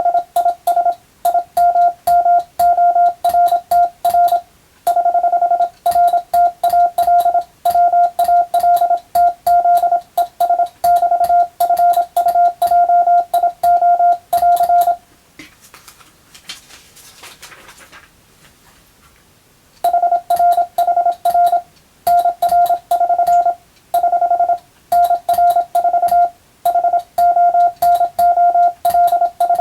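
Morse code sent by hand on a telegraph key: a single steady beep keyed on and off in rapid dots and dashes, with a faint click on each element. The sending breaks off for about five seconds about halfway through, then resumes.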